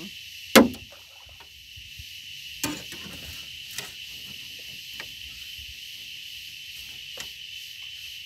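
A sharp knock about half a second in, then a few fainter knocks and clicks, as fishing gear is handled in the boat, over a steady high-pitched insect drone.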